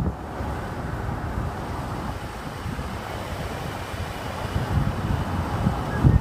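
Steady road and wind noise of a car driving, with wind buffeting the microphone in low rumbling gusts that grow stronger near the end.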